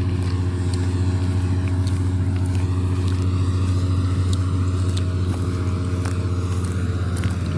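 Combine harvester running steadily while harvesting wheat: a constant low engine hum with scattered faint ticks and crackles over it.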